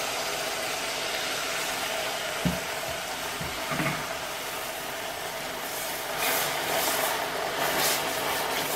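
Hot caramel bubbling and sizzling in a stainless steel saucepan as cream is poured in, with a single knock a couple of seconds in. From about six seconds in, a wooden spoon stirs and scrapes the mixture in repeated short strokes.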